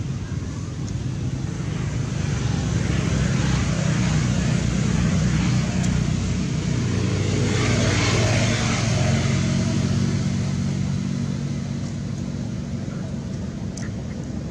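A motor vehicle's engine running with a low hum, growing louder to a peak about halfway through and then fading.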